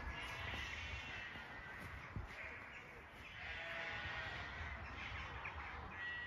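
Faint outdoor evening ambience with distant birds calling, several at once, in short repeated calls.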